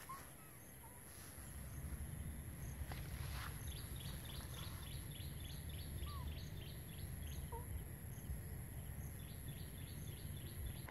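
Outdoor ambience: a steady low rumble and a constant high whine, with a rapid series of short high chirps, about four a second, in the middle and again near the end.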